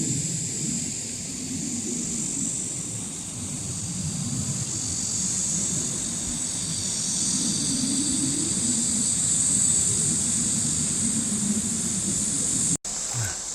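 Outdoor background: an uneven low rumble, like wind on the microphone, over a steady high hiss. It cuts off abruptly near the end.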